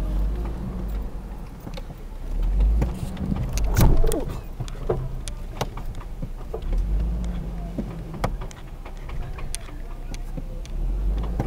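Hummer H3 heard from inside its cabin as it crawls over slickrock: a steady low engine and drivetrain rumble with scattered knocks and rattles.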